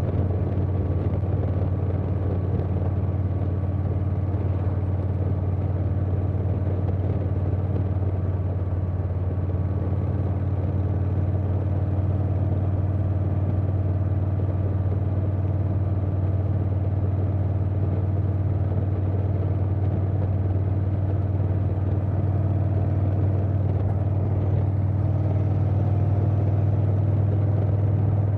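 2020 Harley-Davidson Softail Standard's Milwaukee-Eight V-twin running at a steady cruise through a Vance & Hines Big Radius 2-into-2 exhaust, with wind noise over it; the engine note gets a little louder near the end.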